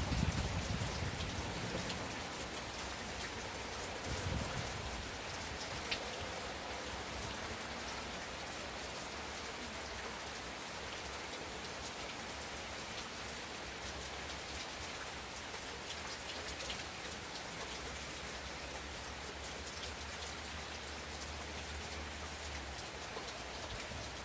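Steady rain hiss with scattered crackles and pops from a wood fire, one sharper pop about six seconds in. A soft low rumble sits under it in the first two seconds.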